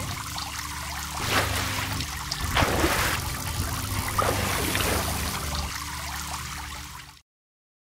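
Water sound effect, trickling and splashing, with a few louder surges, laid over an animated logo sequence. It cuts off suddenly about seven seconds in.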